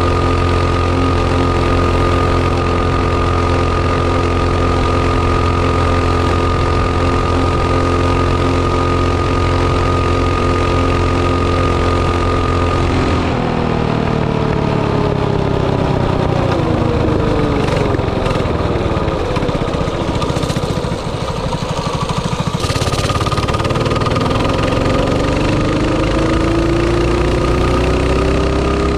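Mini bike's small engine pulling steadily at speed, then its pitch falls from about halfway through as it slows, and climbs again near the end as it accelerates. It is running on a test pass with a freshly fitted size-51 main jet in its oversized 22 mm carburetor.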